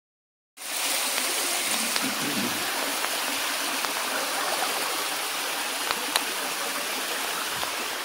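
Steady rush of water from a cave waterfall pouring over rock, starting about half a second in, with a couple of faint clicks a little after the middle.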